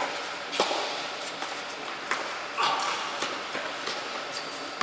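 Tennis balls being struck by rackets and bouncing on an indoor hard court during a rally: a string of sharp pops, the loudest about half a second in, echoing in a large tennis hall.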